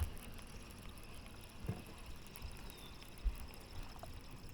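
Faint ambient noise aboard a small fishing boat: a low rumble with two soft knocks, one a little under two seconds in and one just past three seconds.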